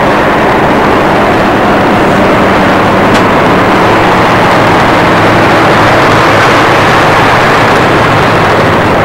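Loud, steady running of a heavy engine close by, a low hum under a constant rushing noise, unchanging throughout.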